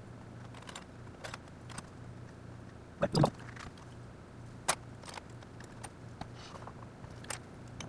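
Hand work on an aluminium brake caliper and small metal parts over a plastic drain pan: scattered light clicks and clinks, with a louder double knock about three seconds in and a sharp click just under five seconds. A faint steady hum sits underneath.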